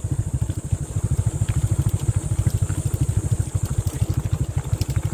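Small motorcycle engine running steadily under way, with a rapid, even exhaust beat.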